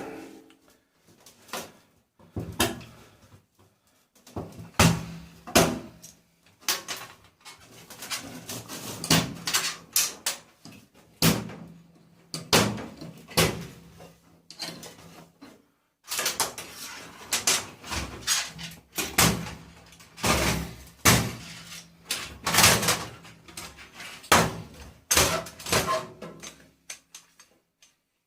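Irregular clanks, knocks and rattles of the tumble dryer's sheet-steel casing and parts being pulled apart and handled during dismantling, stopping abruptly near the end.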